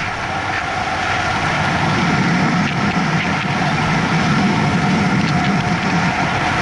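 Steady road noise from a bicycle rolling along an asphalt street, tyre rumble mixed with wind on the microphone; the low rumble grows louder about two seconds in.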